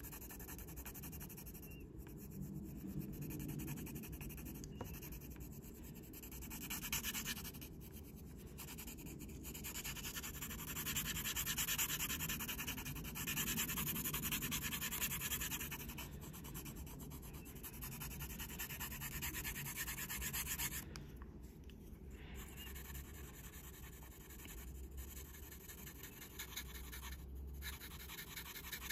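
Graphite pencil shading on paper: quick back-and-forth strokes scratching and rubbing steadily, with a few short pauses.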